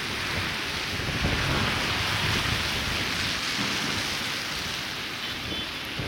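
Blizzard wind and the hiss of cars passing on a snowy street, with gusts rumbling on the microphone. The hiss swells about a second in and eases off near the end.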